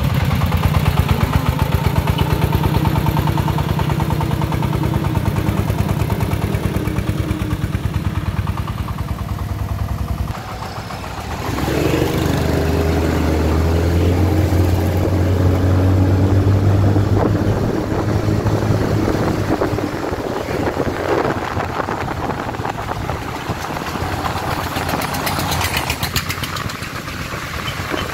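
Diesel engine running with a steady, rapid chug. About ten seconds in it dips, then runs louder and deeper for several seconds under load before easing back.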